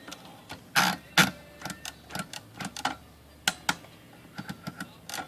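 Hermes 3000 manual typewriter being tried out after its platen was refitted: mechanical clacks and clicks from its moving parts. Two loud clacks come about a second in, followed by a run of lighter, irregular clicks.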